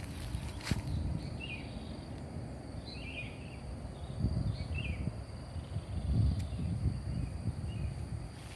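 Outdoor nature ambience: short bird chirps every second or so over a steady high insect drone, with a low uneven rumble underneath and a couple of faint clicks.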